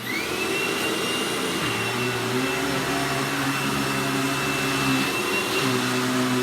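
Hoover WindTunnel Anniversary Supreme bagged upright vacuum switched on, its motor whining up to speed within about half a second and then running steadily. Its lower hum shifts pitch twice as it works.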